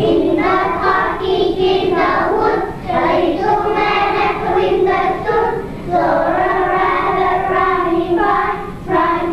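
A class of young children singing a song together, the phrases breaking off briefly about every three seconds.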